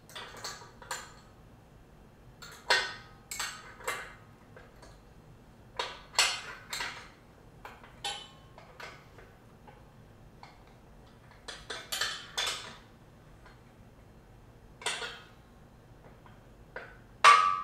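Irregular metallic clicks and clinks of a wrench working a bolt and nut on a steel weight-bench frame while it is tightened, ending with a sharp metal clank that rings briefly.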